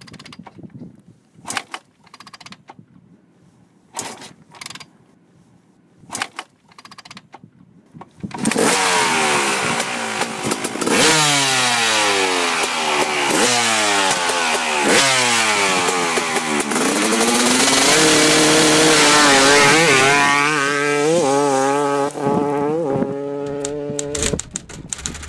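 Dirt bike engine accelerating hard, its pitch climbing and dropping back at each of several upshifts, then held and blipped up and down in short revs near the end. It is preceded by a few short, sharp clicks and knocks in the first eight seconds.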